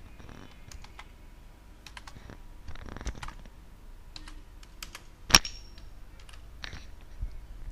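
Computer keyboard keystrokes: scattered, irregular key presses from copying and pasting lines of code, with one louder key press about five seconds in.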